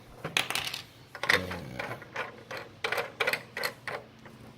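Plastic parts of a toy car building kit clicking and clattering as they are handled and fitted: a string of irregular sharp clicks.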